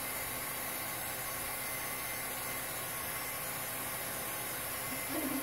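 Steady whirring hiss of a film projector running. A brief low hum of a voice comes in near the end.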